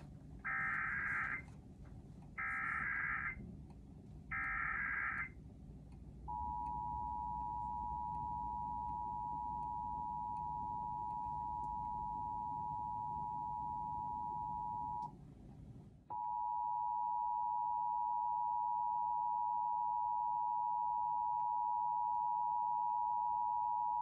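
Emergency Alert System broadcast: three short bursts of SAME header data warble about a second apart, then the two-tone attention signal (853 and 960 Hz) held for about nine seconds. After a brief gap a second attention signal follows: the upstream attention tone that the ENDEC did not remove from the relayed test. It plays over the control-room monitors.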